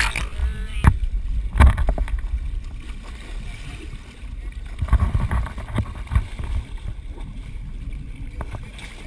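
Sea water sloshing and splashing against the boat's side beside a hooked blue marlin, over a steady low rumble, with several sharp knocks, the loudest about one and a half seconds in.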